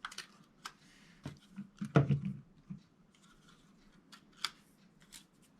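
Small plastic clicks and handling noises from smoke alarms being handled as their plastic battery-isolation tabs are pulled out to activate the lithium batteries. The clicks are scattered and irregular, the loudest about two seconds in.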